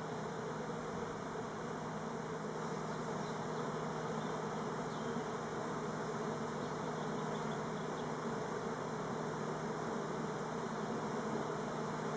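Steady buzzing of many Elgon Buckfast honey bees flying around their hive, which the beekeeper hopes is orientation flight and not swarming.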